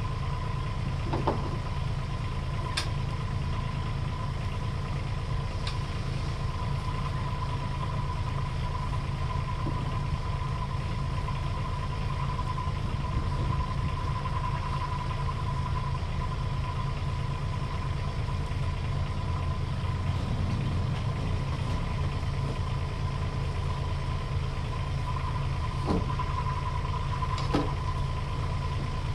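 Kubota U10 mini excavator's diesel engine idling steadily, with a constant high whine over the low rumble. A few short clicks and knocks sound now and then, mostly near the start and near the end.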